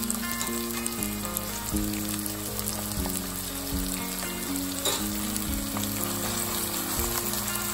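Diced onion sizzling and crackling steadily in hot olive oil in a pot, with a wooden spoon stirring it near the end.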